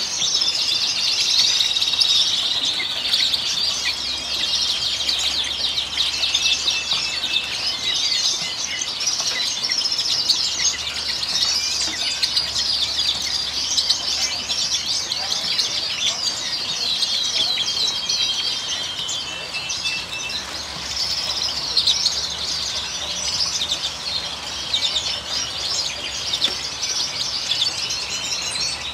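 Many caged finches and canaries chirping and twittering at once: a dense, continuous chorus of high, quick calls and trills with no pause.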